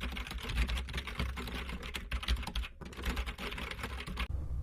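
Fast typing on a computer keyboard, a dense run of keystrokes with a short break a little under three seconds in, stopping shortly before the end.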